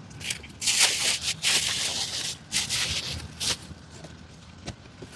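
Packaging rustling and crinkling as a boxed speaker is unpacked by hand, in two longer stretches with a few light scuffs after.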